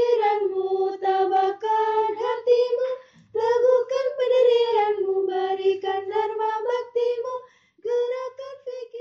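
A high solo voice singing a slow melody with hardly any accompaniment, in long held phrases with short breaths about three seconds in and near the end.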